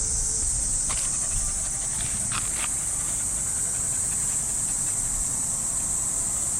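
Chorus of cicadas in the trees, a steady high-pitched drone, with a few faint scuffs about a second in and again around two and a half seconds in.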